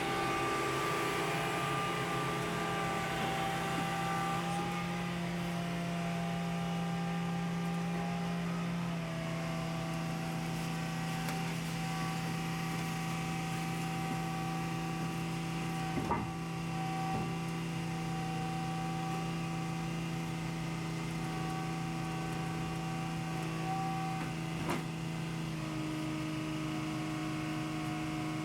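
Engine of a Terex Demag AC200 all-terrain crane running at a steady speed, a steady droning hum whose pitch shifts slightly twice, with two brief sharp clicks.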